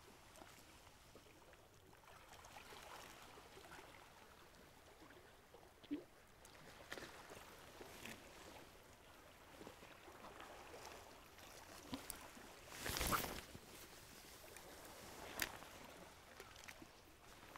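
Quiet seashore ambience: faint lapping of calm sea water along the shore, with a few light clicks and one brief, louder rustle a little past the middle.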